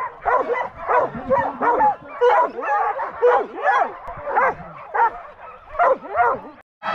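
Dogs barking and yelping excitedly in a rapid string of high yips, about three a second: canicross dogs keyed up and eager to run before the start.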